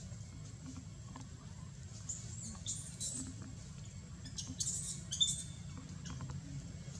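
Baby long-tailed macaque giving high-pitched squeaks in two short bouts, about two seconds in and again about four and a half seconds in, calling for its mother to feed.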